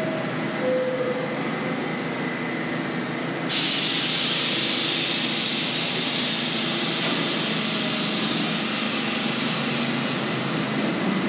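Subway trains running through the station, with a steady rumble. About three and a half seconds in, a loud hiss comes in suddenly and holds.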